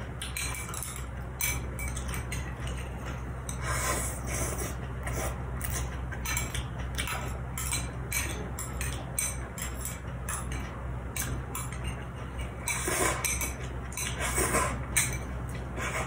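Metal chopsticks clinking and scraping against a small glass bowl of dipping sauce, in many short clicks, with a few longer noisy stretches around four seconds in and near the end. A steady low hum runs underneath.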